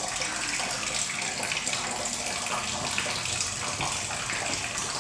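Water leaking through the ceiling, splashing steadily onto the flooded office floor and into a plastic bucket.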